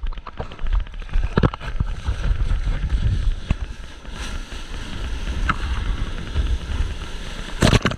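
Surf whitewater rushing and splashing close around a camera mounted on a bodyboard, with a steady low rumble of water and wind on the microphone. Several sharp splash hits stand out, the loudest near the end.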